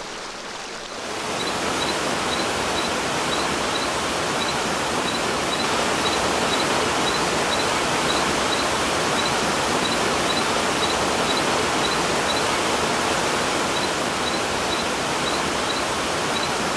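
Mountain stream rushing and splashing down a rocky cascade, a steady rush of white water that gets louder about a second in. A faint high chirp repeats about twice a second over it.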